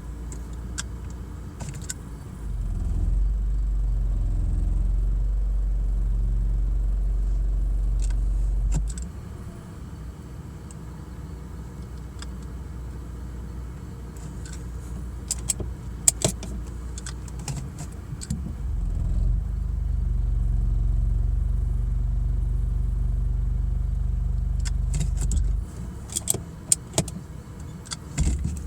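BMW E46 with an automatic gearbox idling, twice breaking into a loud low thumping drone for several seconds each time, with sharp clicks near the middle and near the end. This is the thumping and vibration that comes when the car is shifted from P into a drive gear with the foot on the brake; the owner does not know the cause.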